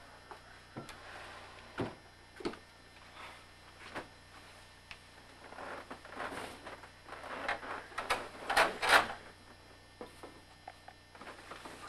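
Irregular rustling and knocking of things being handled close by, growing busier toward the end with a quick run of louder scrapes about eight to nine seconds in, over a faint steady hum.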